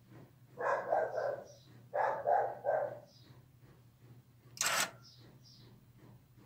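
A dog barks in two quick runs of barks in the first three seconds. About four and a half seconds in comes a short burst of noise, about a third of a second long, as the door-lock actuator's gear motor, switched through the relay by the infrared remote, swings its lever.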